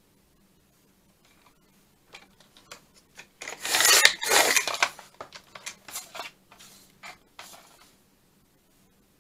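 Sliding paper trimmer cutting paper: the blade carriage is run along the rail with a rasping scrape, loudest about four seconds in, amid short clicks and paper rustles.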